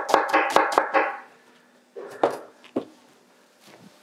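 Kitchen knife rapidly chopping an onion on a plastic cutting board, about five strokes a second, stopping about a second in. Then two separate knocks.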